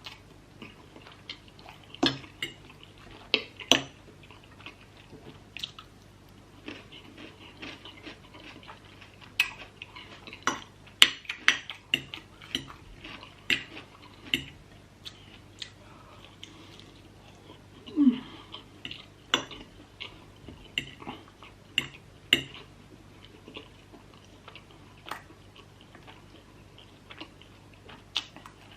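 Close-miked mukbang eating sounds: chewing spicy instant noodles, with irregular sharp clinks of cutlery against a bowl or plate over a faint steady hum.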